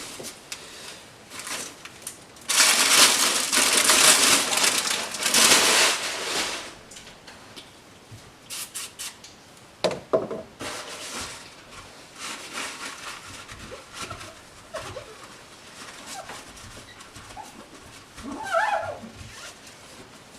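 Water running over a glass headlight lens as it is washed, a steady rush lasting about four seconds, followed by small knocks and handling sounds and a brief squeak near the end.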